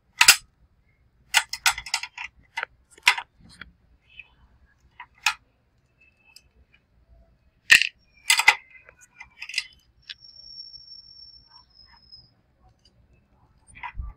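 Irregular sharp metallic clicks and clinks of a screwdriver and screws against the metal battery holder and chassis of an opened UPS, as the holder is screwed down; the loudest strokes come just after the start and about eight seconds in. A thin high whistle holds for about two seconds in the second half.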